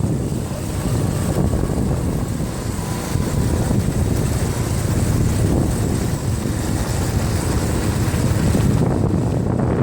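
An ATV engine running steadily while riding, mixed with wind buffeting the microphone.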